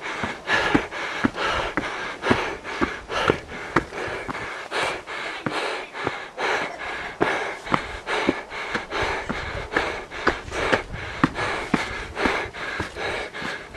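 Footsteps on a sandy dirt trail, about two to three steps a second, with a hiker's heavy breathing while climbing a steep path.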